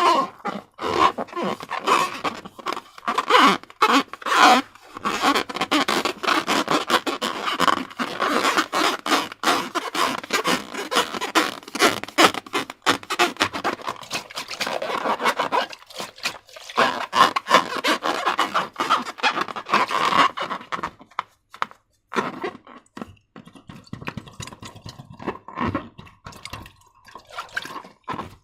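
Slime being worked by hand, a dense run of sticky crackling and squishing clicks. There is a brief pause about two-thirds of the way through, and the sound is quieter after it.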